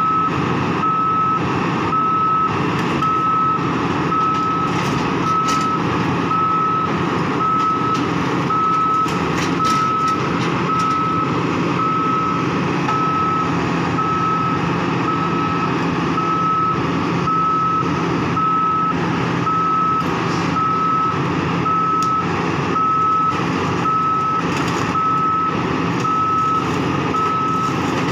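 Warning beeper of a Sany 205 rig sounding a single steady tone about once a second, over the steady running of the machine's diesel engine.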